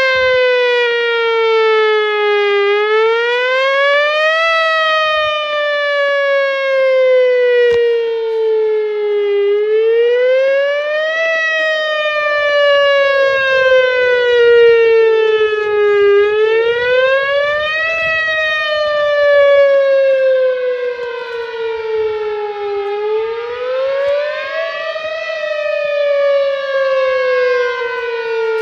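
A Whelen Vortex R1 tornado warning siren runs at full power, sounding its wail. Its pitch rises over about two seconds, then falls slowly over about five, four times over. The sound echoes back off nearby buildings and valleys.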